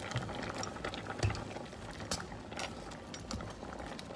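Mung bean soup boiling in a stainless steel pot, with a few short clicks and knocks; near the end a spoon stirs the pot.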